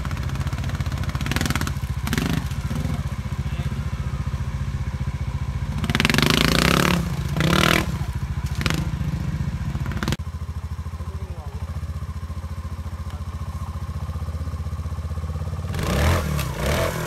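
Trials motorcycle engine ticking over with a steady beat, opened up in short sharp bursts of throttle as the bike climbs over boulders. The longest and loudest burst comes about six seconds in, with more bursts near the end.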